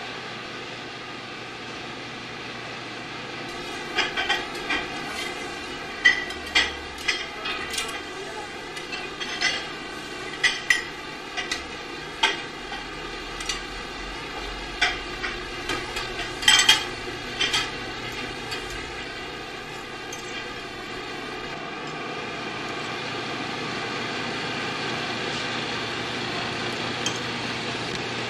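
Kitchen clatter of dishes, pots and utensils: scattered sharp clinks and knocks over a steady background hum. The clinks stop about two-thirds of the way in, leaving only the hum.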